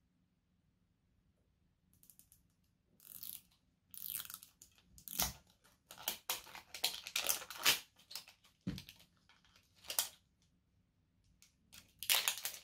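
Plastic wrapper of a Mini Brands capsule ball being peeled and torn off by hand, crinkling and tearing in irregular bursts that begin about three seconds in.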